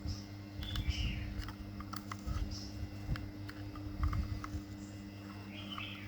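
Scattered light clicks and taps, like small hard parts being handled, over a steady low hum.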